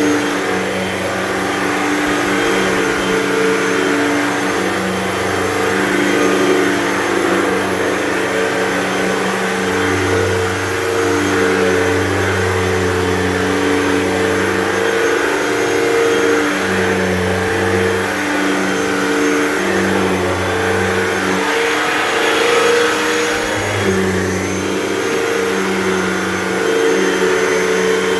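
Hoover Total Home Pet upright vacuum cleaner running on thick carpet, its motor and brush bar giving a steady loud rush with a low hum that shifts every second or two.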